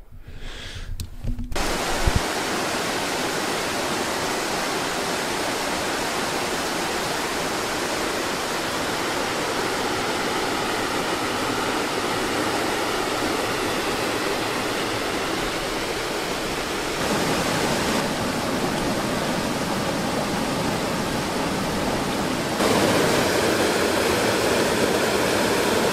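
Rushing white water of a river's rapids and small waterfall: a steady, even rush that comes in after about a second and a half. It grows louder in two steps, about two-thirds of the way through and again near the end.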